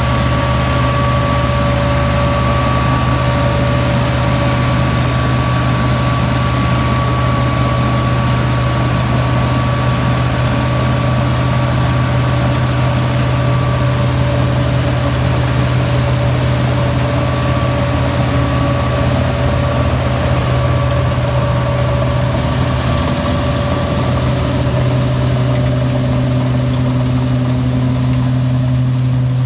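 Massey Ferguson 385's four-cylinder tractor engine running steadily under load, driving a wheat straw chopper through its PTO shaft. A constant low drone with a steady whine over it.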